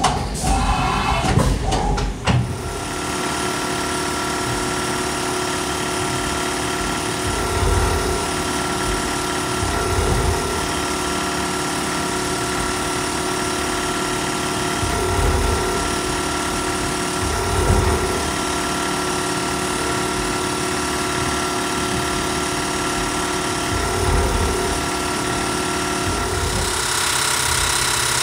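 A few loud clatters, then a Dapra DMwriter-MX spindle-mounted dot peen marker rapidly hammering its stylus into a metal block as the CNC mill traces out letters and a logo. It is a steady mechanical buzz with a few fixed pitches. There are brief louder swells every few seconds, and the tone changes slightly near the end.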